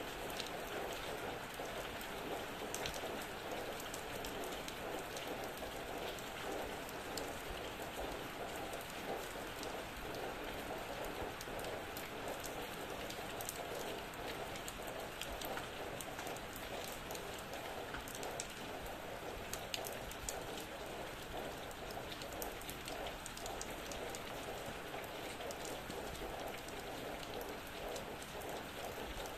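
Steady rain falling on surfaces, with a dense patter of individual drops.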